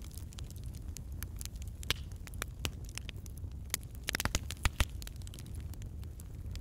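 Hands rolling a ball of shortbread dough between the palms and pressing it down onto a board, heard as soft handling noise with scattered small clicks and taps, and a quick run of them about four seconds in, over a steady low hum.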